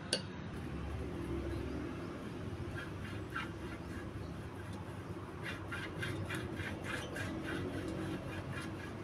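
Silicone pastry brush rubbing oil over a non-stick baking pan in quick back-and-forth strokes, each a short squeaky scrape, about three a second through the second half. A single sharp click right at the start.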